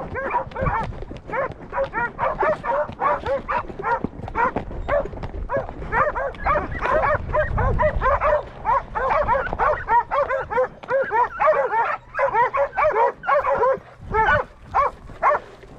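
Young working-dog puppies barking and yipping rapidly, short barks a few times a second, overlapping throughout as they work cattle.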